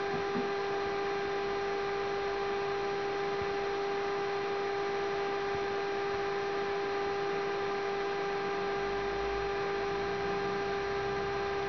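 A steady electrical hum, one unchanging tone with higher overtones over a constant hiss.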